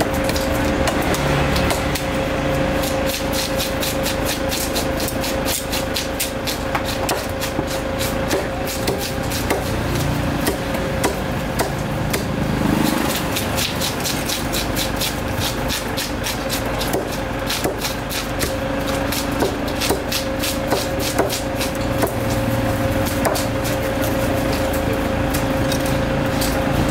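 A heavy cleaver chops milkfish on a wooden chopping block in a long run of repeated sharp knocks, with a short pause about halfway. A steady hum and market din run underneath.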